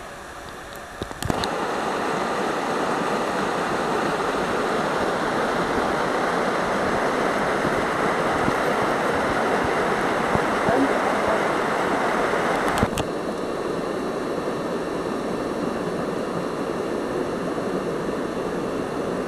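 Mountain stream rushing over rocks as a steady hiss of water. It gets louder after a click about a second in and drops to a lower level after another click about two-thirds through.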